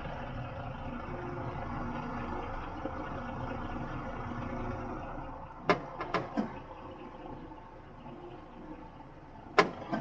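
The truck engine and hydraulic pump of an Effer loader crane run steadily while the crane is worked by remote control. The hum drops to a lower level about six seconds in, with a few sharp clicks around then and one more near the end.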